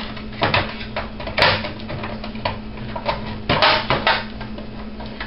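A DVR's casing being put back on by hand: a series of irregular knocks and clatters, the sharpest about one and a half seconds in and a quick cluster of them near four seconds, over a faint steady low hum.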